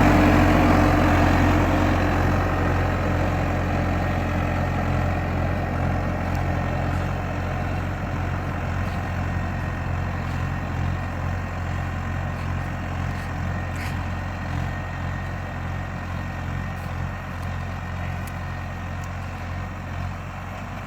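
Skid steer engine running steadily with a low hum, growing gradually fainter as the machine drives away.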